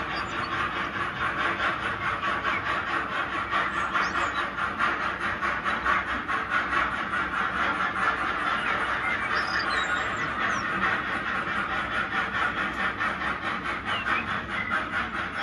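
HO scale model freight train of hopper wagons rolling along the track, a steady, fast, even rattle of the wheels on the rails that grows slightly fainter near the end as the train moves away.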